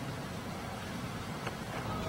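Steady low outdoor background rumble, with a faint tick about one and a half seconds in.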